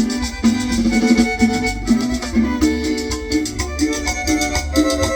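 Chanchona band playing an instrumental passage between sung verses: a melody over a steady, repeating bass line and an even percussion beat.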